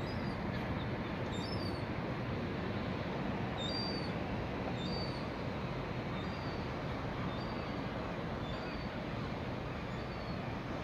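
A bird's short high calls repeat roughly once a second over a steady low rumble of noise.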